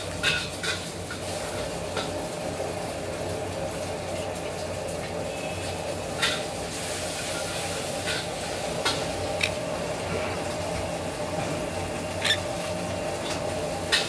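Blue quaker parrots (monk parakeets) giving a few short, sharp squeaks spread out over several seconds, over a steady background hiss.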